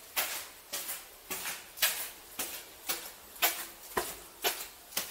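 Footsteps of a person walking, about two steps a second, each a short gritty scrape.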